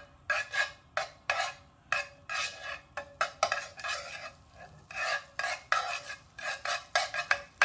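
A utensil scraping around a Michelangelo copper ceramic nonstick frying pan as melting butter is spread over it, in quick repeated strokes of about three a second with a short pause a little past the middle.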